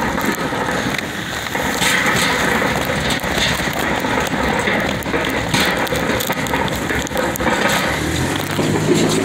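Rain falling steadily on a plastic sheet stretched over a cart of packages, with many quick drop ticks close by. About eight seconds in, a vehicle's low engine hum comes in.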